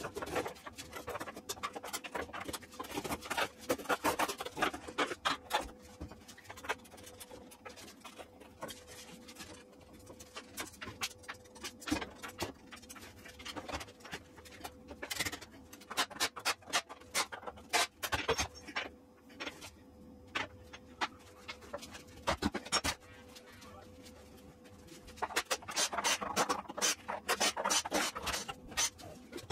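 Hands-on work swapping the gear racks on a CNC router: irregular metal clicks, knocks and scraping of parts and tools, over a faint steady hum. It goes quieter for a few seconds past the middle, then busier again near the end.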